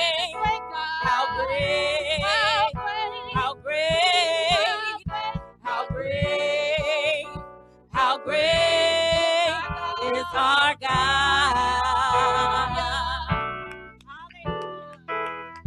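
Gospel worship singers singing with vibrato through microphones over instrumental accompaniment. The singing stops about thirteen seconds in, leaving sparse keyboard notes.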